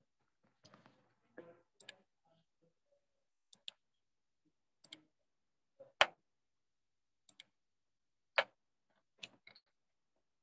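Irregular sharp clicks and pops, about a dozen over ten seconds, with the loudest about six seconds in and some faint muffled noise near the start.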